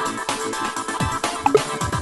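Electronic dance music with a steady kick-drum beat under synth tones, and a short rising blip of tones about one and a half seconds in.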